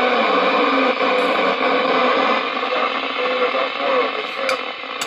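Amstrad CB 901 27 MHz FM receiver's speaker giving out a loud, steady hiss of static, with faint voices of distant stations buried in the noise. The radio is receiving skip.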